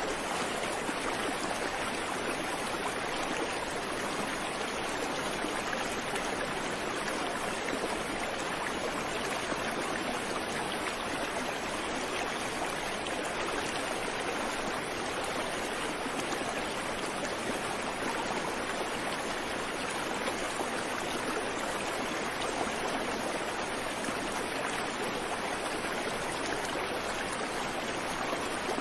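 Creek water running over rocks: a steady, unbroken rushing and babbling, with no birds.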